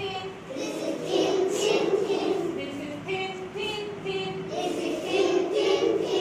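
A class of young schoolchildren singing together in unison, phrase after phrase.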